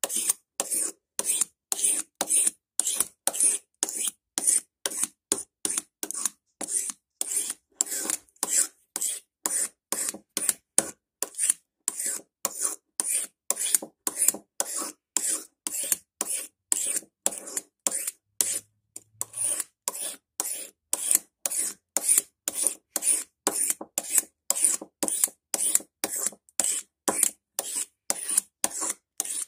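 A blade scraping the old finish off a wooden hammer handle in short, even one-way strokes, about two a second.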